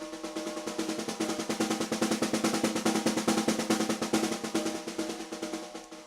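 Brady 14x7 Marri ply snare drum played in a fast, dense roll that swells louder to a peak in the middle and then fades away.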